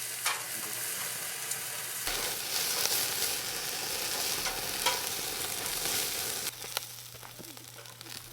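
Chicken sizzling as it cooks over high heat, a steady hiss with scattered sharp crackles. About two seconds in the sizzle turns louder and brighter, and it drops suddenly to a quieter hiss past the middle.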